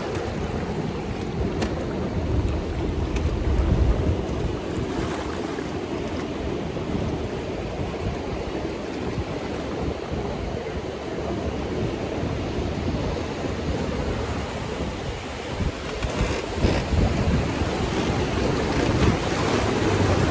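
Whitewater rapids rushing and churning around a raft drifting through them, with wind buffeting the microphone.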